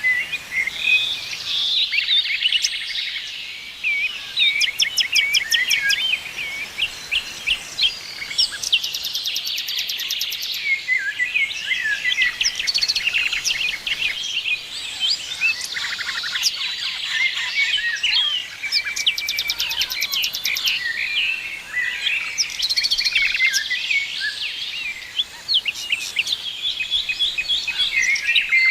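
A chorus of many small birds chirping and trilling at once, dense overlapping calls with a few fast, high ticking trills.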